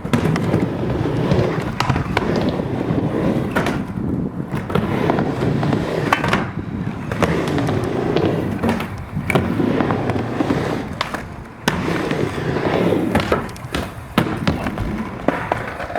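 Skateboards rolling back and forth on a mini ramp, the wheels making a swelling rumble with repeated sharp clacks and knocks of boards and trucks hitting the ramp and coping.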